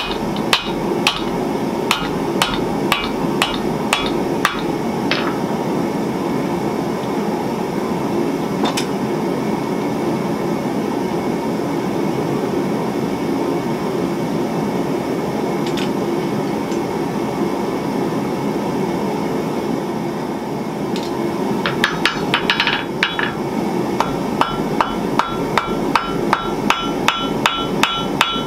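Hand hammer striking hot spring steel on an anvil, about two blows a second with a ringing note. The hammering runs for the first few seconds, breaks off to a few single strikes, and starts again in the last several seconds. A steady rushing noise runs underneath.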